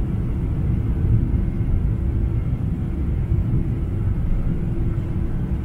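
Boeing 747-400 with GE CF6-80C2 turbofans taxiing, heard inside the cabin over the wing. There is a steady low rumble with a faint, steady high engine whine above it.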